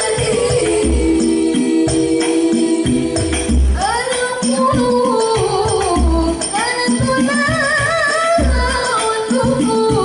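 Al Banjari hadroh ensemble: women's voices singing a devotional song together with wavering, ornamented melody lines over a busy pattern of hand-struck frame drums (terbang), with a deep low thump roughly every two seconds.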